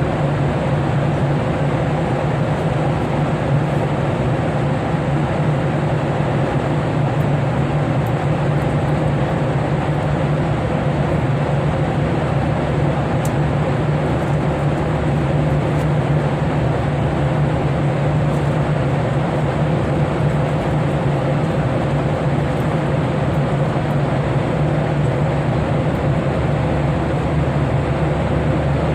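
Steady airliner cabin noise in flight: a constant drone of engines and airflow with a strong low hum, unchanging throughout.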